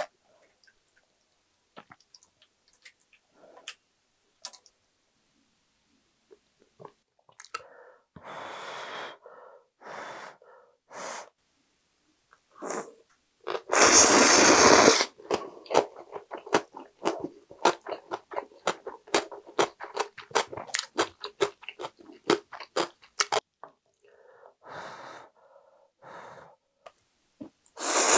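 A person eating instant ramen noodles up close: a few soft breathy puffs, a loud slurp of noodles about halfway through, then a long run of quick wet chewing clicks, more puffs, and a second loud slurp at the end.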